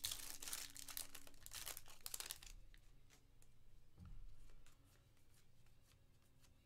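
Foil trading card pack being torn open, its wrapper crinkling for about the first two and a half seconds, then quieter handling of the cards.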